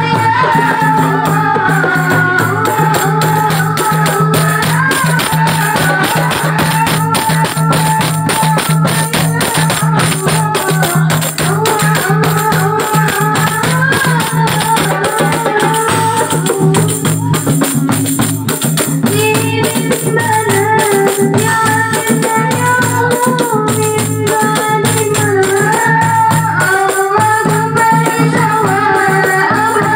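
Marawis ensemble playing a song: hand drums and a jingling tambourine keep a fast, dense beat under a woman singing a wavering melody.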